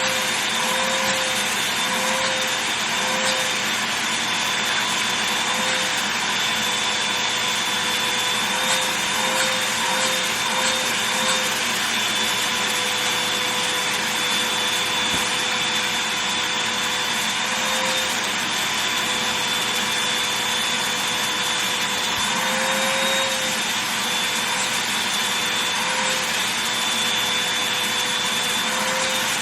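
Vacuum cleaner running steadily with a constant motor whine, its nozzle working over a fabric duffel bag, with the pitch wavering slightly now and then as the suction changes against the cloth.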